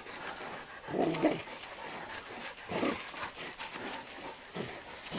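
Hunting dogs worrying a caught wild boar: short whimpering calls three times, about a second in, near the middle and past four seconds, over scuffling in dry leaves.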